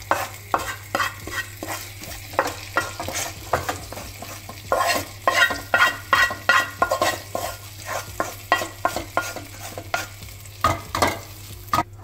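Wooden spatula scraping fried grated coconut out of a metal frying pan into a stainless-steel pot of curry: quick, irregular scrapes and knocks of wood on metal, then stirring in the pot.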